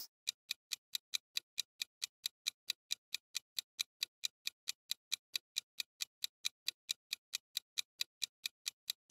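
Countdown-timer sound effect: a steady clock-like ticking, about four to five sharp ticks a second.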